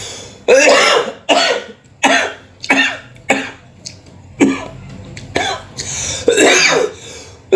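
A man coughing in a fit of repeated harsh coughs and throat-clearing, about one a second, after choking on his food while eating.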